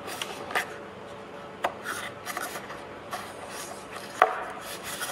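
Rubber headlight seal being worked into place by hand: rubbing and handling with scattered small clicks, and one sharper click about four seconds in.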